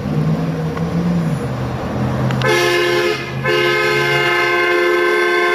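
Hummer H2 engine running with a low steady hum, then a vehicle horn: a short blast about two and a half seconds in, followed by a long held blast.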